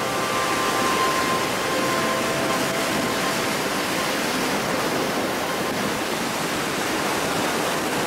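Waves breaking and washing over the shore in a strong wind: a loud, steady rush of surf and wind noise.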